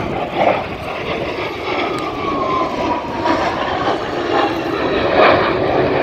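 Military jet fighter flying a display pass, its engine roar growing steadily louder, with a whine that falls in pitch partway through.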